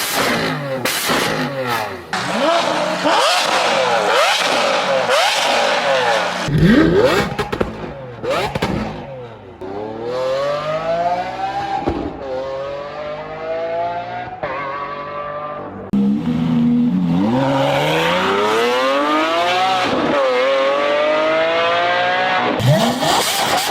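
Lamborghini Aventador SVJ's naturally aspirated V12 revving and accelerating hard, its pitch climbing in repeated sweeps and dropping back between them, in several short clips cut together.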